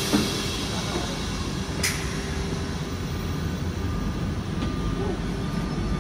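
SNCF Z 20900 double-deck electric suburban train running with a steady rumble and hiss, a sharp click about two seconds in, and a faint steady whine from about four seconds in.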